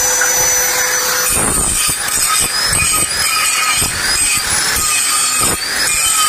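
Angle grinder with a cut-off disc cutting through a steel truck chassis rail. Its high whine holds steady for about a second, then sags and recovers in pitch again and again as the disc bites into the steel.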